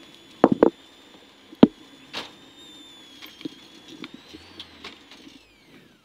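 Clunks and knocks from a roadside wheel change on a rally car, heard from inside the cabin: a pair of heavy knocks about half a second in, another near 1.6 s, then lighter taps. A faint high whine rises and falls near the end.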